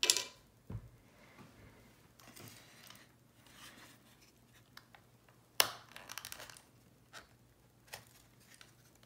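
Plastic housing of a Valentine One radar detector being handled and pried off its metal chassis: scraping and rubbing of plastic on metal, a sharp snap about five and a half seconds in followed by a quick run of clicks, then a few light ticks.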